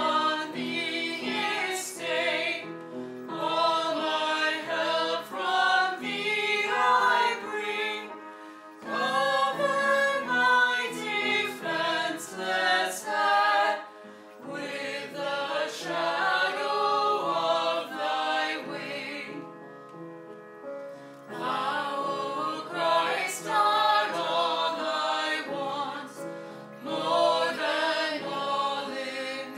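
A choir singing a hymn, in phrases with short breaks between them.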